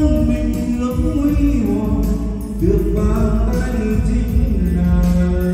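A Vietnamese karaoke song played loud through a home karaoke system (a pair of JK Audio G6000 floor-standing speakers with a T9 subwoofer): a man sings long held notes into a wireless microphone over the backing track, with steady bass underneath.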